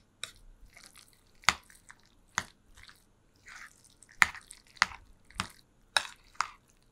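Thick cream-cheese artichoke dip being stirred in a metal mixing bowl. The utensil clinks against the bowl in sharp, irregular clicks that come about every half second in the second half, over soft squishing of the dip.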